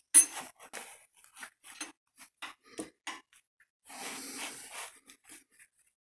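Irregular clicks, taps and scrapes of a crankshaft locking rod being wiggled and probed against the engine block, hunting for the flywheel locking hole on a TU5JP4 engine. The sharpest click comes right at the start, and there is about a second of scraping rustle around four seconds in.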